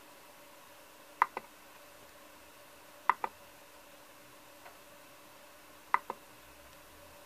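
Select knob of a Turnigy motor analyzer clicking: three quick double clicks about two seconds apart as the motor's pole count is set.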